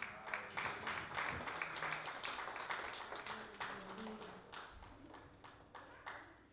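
Small congregation applauding, the clapping thinning out and fading away, with a few last scattered claps near the end.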